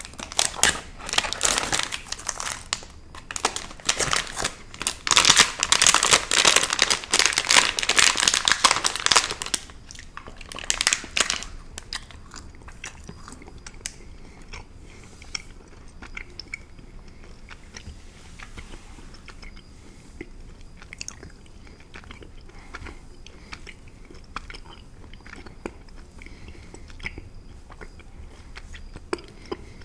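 Clear plastic candy wrapping crinkling and crackling loudly as it is torn open and handled, for about the first ten seconds. After that, sparse, softer clicks and smacks of a mouth chewing caramel candy.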